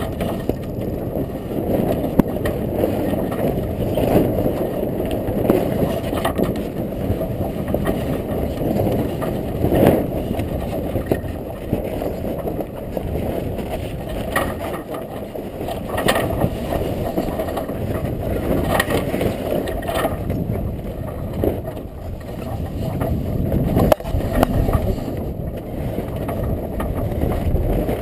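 Wind buffeting the microphone, with the headsail's cloth flapping and rustling and giving occasional short sharp snaps as it is hauled down out of its furler foil.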